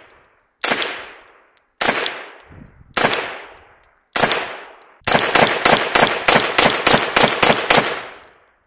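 Grand Power Stribog SP10A3 10mm roller-delayed blowback pistol firing: four single shots about a second apart, each report dying away, then a fast string of about a dozen semi-automatic shots.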